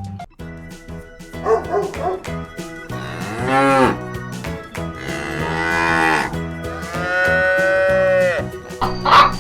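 Cows mooing: three long moos that rise and fall in pitch, over steady background music. A short loud sound comes near the end.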